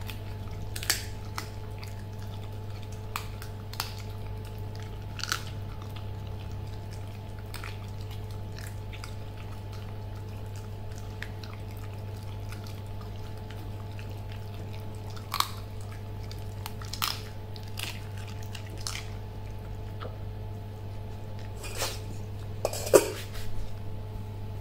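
A puppy chewing a raw chicken wing, with irregular sharp crunches as its teeth crack the bones. Near the end there is a louder metallic clatter as a stainless steel food bowl is set down.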